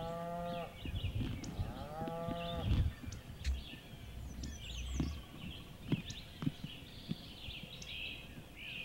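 Wild turkeys calling in a field: two drawn-out calls about two seconds apart near the start, with songbirds chirping steadily behind and a few short clicks.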